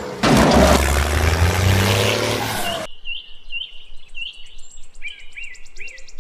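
Loud engine-like vehicle sound with a burst of splashing water just after the start, cutting off abruptly about three seconds in. Outdoor sound follows: birds chirping repeatedly and a high, rapid, even trill.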